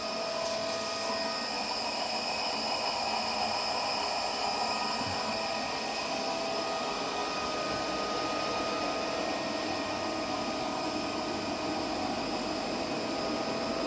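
Telemecanique Altivar 71 variable-frequency drive and the motor it runs on test after repair: a steady whir with several faint, steady whining tones.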